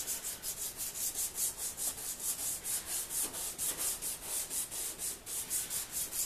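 Wet-sanding a yellowed plastic headlight lens by hand with a Rain-X headlight restoration kit's blue sanding pad, lubricated with spray: a quick, even rhythm of rasping back-and-forth strokes, about five a second. This is the first, coarsest step, which takes off the yellowed surface.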